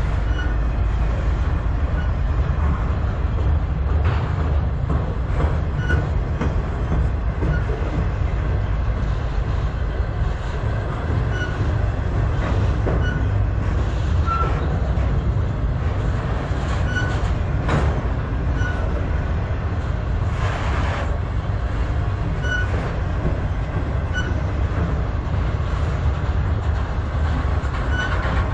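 Loaded freight flatcars rolling past at close range: a steady heavy rumble of steel wheels on rail, with faint clicks over the rail joints. Short high wheel chirps come every second or two, and a brief squeal sounds about three-quarters of the way through.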